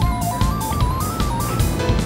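Background music: an upbeat tune whose melody climbs note by note, over a steady drum beat and bass.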